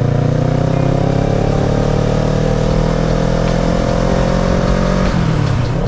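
Kawasaki ER-6n's parallel-twin engine under way, its revs climbing steadily as it pulls, then falling abruptly about five seconds in.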